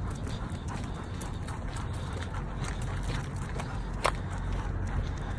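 Footsteps of a walker and a dog on a sidewalk: a run of irregular clicks and scuffs, with one sharper click about four seconds in, over a steady low rumble.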